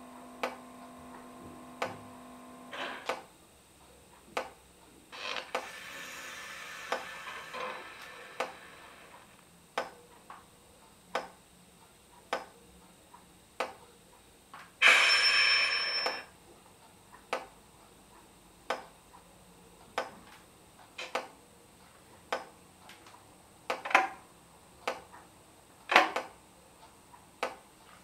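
ESU digital sound of a model Class 92 electric locomotive playing its shutdown sequence through the model's small speaker: the running hum cuts off about three seconds in, a softer hiss follows, and about fifteen seconds in a short, loud blast of air is the loudest sound as the locomotive powers down with its pantograph lowered. A sharp, regular ticking, about one tick every three-quarters of a second, goes on throughout.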